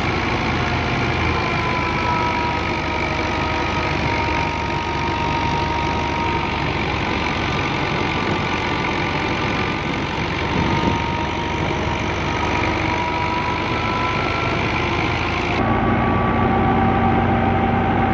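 Fiat 640 tractor's diesel engine running steadily while it drives a wheat thresher, the thresher's drum and fan adding a steady rushing whirr with a faint whine that wavers slowly in pitch.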